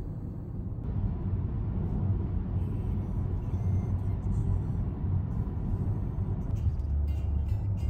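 Steady low rumble of a car driving at road speed, heard from inside the cabin.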